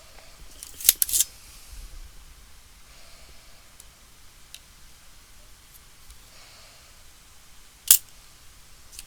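Sharp clicks and snaps from small hand tools on the repair bench, in a quick cluster of three about a second in and single ones near the end, with quiet handling between them.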